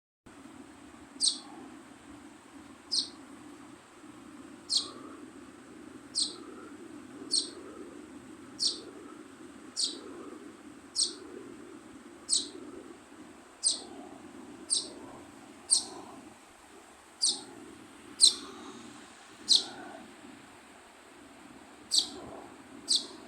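Baby sparrow chirping: single short, high chirps repeated about every one to two seconds, over a steady low background hum.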